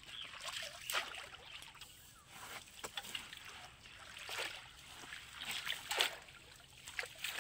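A long pole being swept and jabbed through shallow, muddy ditch water, making irregular splashes and sloshes, several strokes a few seconds apart, as fish are driven toward a trap.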